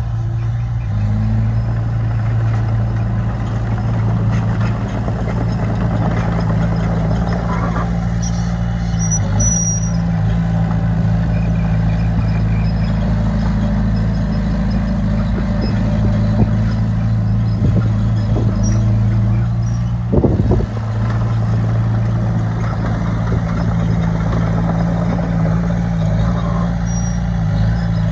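Heavy diesel engine of earthmoving machinery running steadily, with a brief knock about twenty seconds in.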